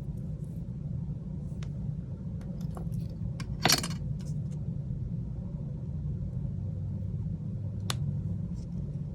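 Light clicks and small metallic clinks of tools and parts as the charging-port board is lifted out of a Samsung Galaxy A21, with one louder short rattle about four seconds in and a sharp click near the end, over a steady low rumble.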